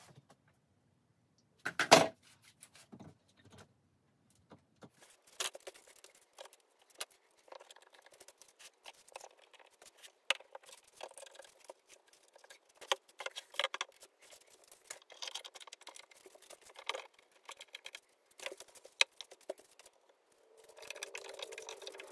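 One-handed bar clamps being fitted and tightened around a wooden tabletop: a sharp knock about two seconds in, then a long run of scattered clicks, clacks and rattles from the clamps' ratcheting triggers and plastic jaws against the wood.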